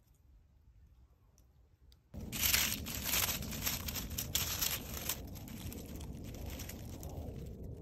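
Dry leaf litter, pine needles and twigs crackling and rustling as a mushroom is pulled up from the forest floor by hand. It starts abruptly about two seconds in, is loudest for the next few seconds, then settles to softer rustling.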